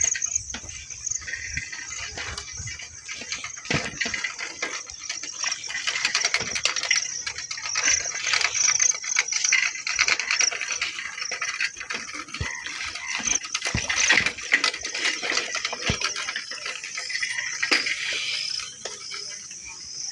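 Insects chirring in a steady high band, over dense, irregular rattling and clicking from movement along a rough, muddy track.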